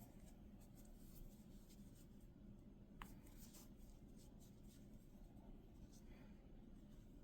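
Faint rustling and light scratchy ticks of a crochet hook working yarn, with one brief sharper click about three seconds in.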